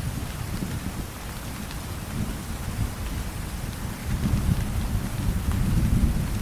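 Steady rain with a low rumble of distant thunder that swells from about four seconds in.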